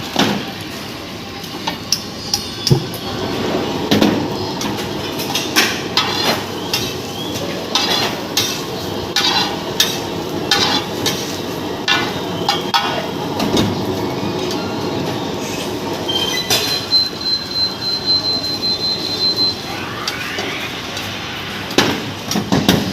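Metal spatula clanking and scraping on a flat iron griddle (tawa) in irregular strikes, about one or two a second, with a thin high squeal for a few seconds in the second half.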